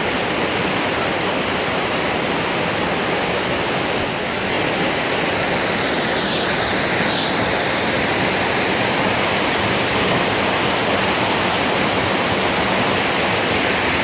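Todtnau waterfall: a loud, steady rush of falling water.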